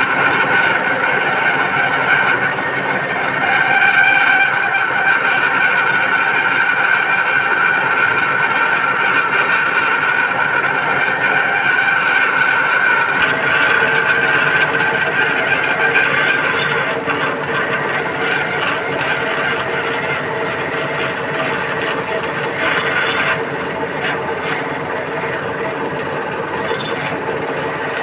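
Lathe running through a drilling operation: a steady high-pitched whine that fades about two-thirds of the way through, leaving a lower steady hum, with a few short harsher noises near the end.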